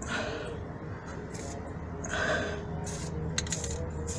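Aerosol paint can spraying black paint onto rusty suspension metal in short hissing bursts, one at the start and a stronger one about two seconds in.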